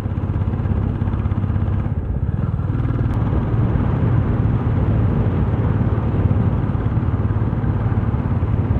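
Motorcycle engine running steadily at cruising speed, with steady wind and road rush over the microphone.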